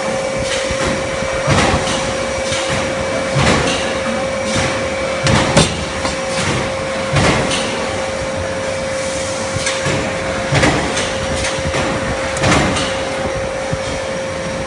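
A high-frequency induction brazing machine running with a steady whine, while metal pots and fittings clank and knock irregularly about every second or two as they are handled on the machine.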